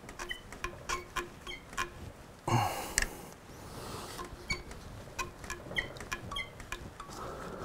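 Rubber coolant hose squeaking and clicking in short bursts as it is twisted with slip-joint pliers on the water-pump neck of a motorcycle engine, the hose stuck fast on the neck. A louder, longer scrape comes about two and a half seconds in.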